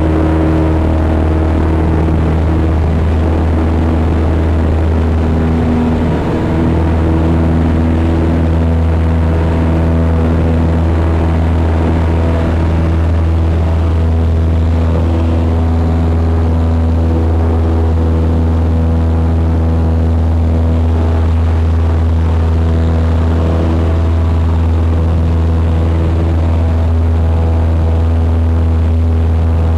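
Cessna 172's piston engine and propeller running steadily during takeoff, a loud even drone with a deep hum.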